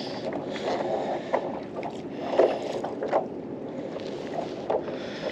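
Small waves lapping and slapping against the hull of a Hobie Lynx kayak, with wind on the microphone. A few short knocks and slaps stand out through it.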